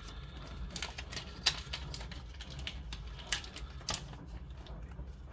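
Fingers picking at and tearing open a small packet of replacement adhesive strips, making irregular light clicks and taps with a few sharper snaps.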